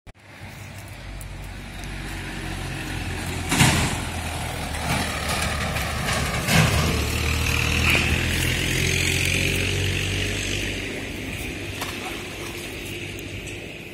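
A tractor engine running as it passes on the road, growing louder to a peak about eight seconds in and then fading. Two sharp knocks sound, about four and about seven seconds in.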